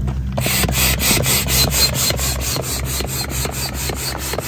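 Air pump driving air through a corrugated hose into an inflatable kayak's valve: a quick, rhythmic rasping hiss of about five pulses a second that starts about half a second in.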